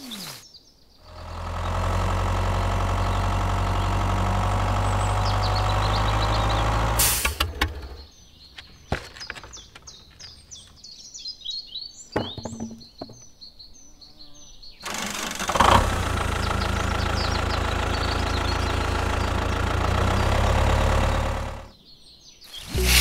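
A steady engine hum runs for about six seconds, stops, and then returns for about seven seconds more. In the gap between, birds chirp and a few light clicks sound.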